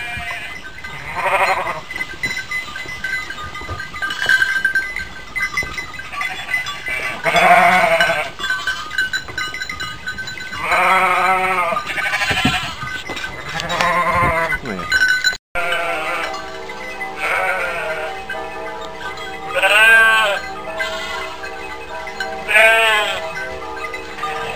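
Hair sheep bleating again and again, one call after another. After a sudden cut about two-thirds through, steady background music plays under two more loud bleats.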